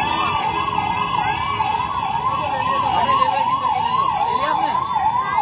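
Electronic vehicle siren warbling, its pitch rising and falling rapidly about twice a second, over the low hubbub of a crowd.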